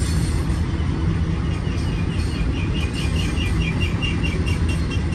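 Intermodal freight train of double-stack container and trailer cars rolling past, a steady low rumble of wheels on rail. From about a second and a half in, a bird chirps in a quick repeated series, about four notes a second, for a few seconds.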